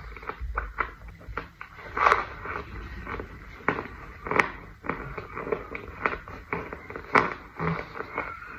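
Close, irregular crunches and crackles of compressed scented powder breaking up, several a second, with louder crunches about two, four and a half, and seven seconds in.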